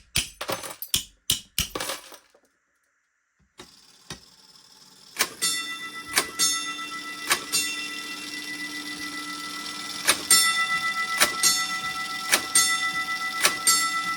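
A run of sharp mechanical clicks. About five seconds in, a fire alarm gong starts striking box code 345: three strokes about a second apart, a pause, then four strokes, each ringing on with a sustained metallic tone and followed by a quick second tap.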